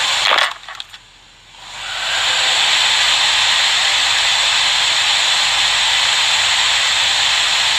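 Hot-air rework station blowing a steady hiss onto the board to soften the underfill glue around the iPhone 6 Tristar chip. The airflow cuts out about half a second in, then builds back up over about a second and runs steady.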